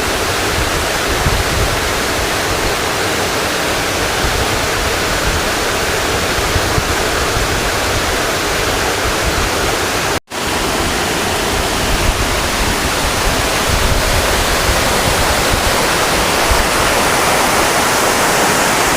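Small waterfall rushing steadily: a dense, even roar of falling water. It drops out for an instant about ten seconds in, then resumes.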